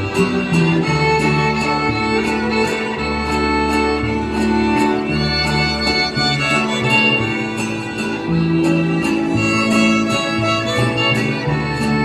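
Mexican folk string music from Michoacán: violins carry the melody over strummed guitars and a bass line that moves every second or two, keeping a regular beat for the dance.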